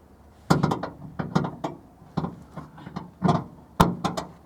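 Ratchet strap being worked: a run of about a dozen irregular metal clicks and clacks, some in quick pairs.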